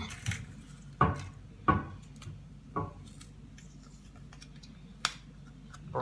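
Folded paper slips rustling in a bowl as one is drawn out and unfolded, with a handful of sharp knocks, the two loudest about a second and a second and a half in.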